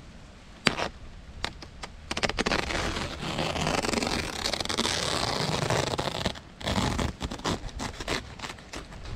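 Green plastic tarp crinkling and scraping under gloved hands as it is handled and pulled: a few sharp crackles, then a few seconds of continuous rustling scrape, then a quick run of crackles.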